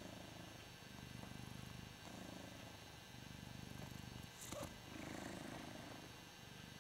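Ragdoll cat purring close up, the rumble swelling and easing with each breath about once a second. A brief click about four and a half seconds in.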